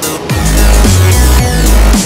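Electronic background music with a heavy bass line and a steady, driving beat.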